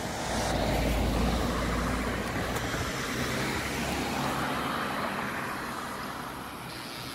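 Cars driving past on a road, tyre and engine noise swelling within the first second or two and then slowly fading away.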